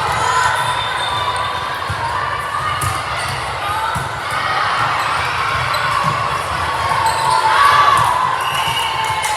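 Indoor gym sound of a volleyball match: the ball thudding off hands and floor, over players and spectators calling out and cheering, a little louder near the end.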